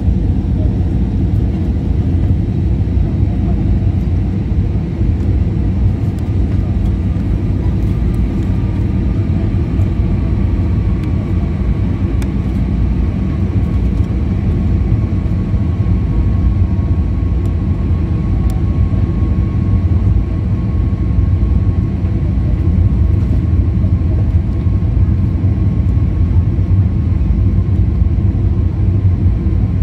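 Jet airliner cabin noise: a steady, loud low rumble of engines and airflow heard from inside the passenger cabin, with a faint thin whine drifting slightly lower through the middle.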